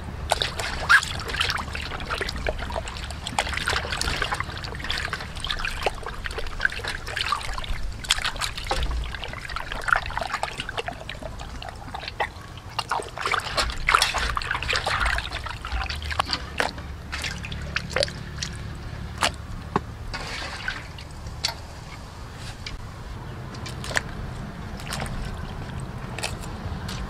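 Water sloshing and splashing in a metal basin as hands scrub and rub a raw pig stomach, with many small sharp clicks and splashes, busiest in the first half and sparser later.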